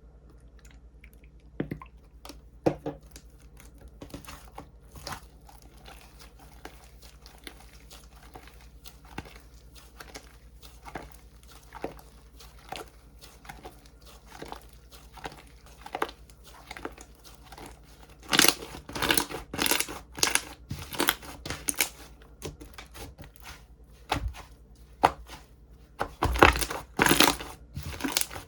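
Slime being handled by hand, giving a run of sticky clicks and crackles. Faint at first, with louder bursts of crackling about two-thirds through and again near the end.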